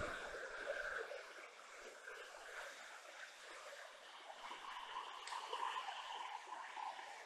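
Mountain river rushing over boulders and small rapids, a steady hiss of flowing water.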